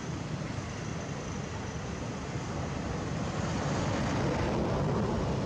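Steady low rumbling outdoor background noise, growing a little louder about three and a half seconds in.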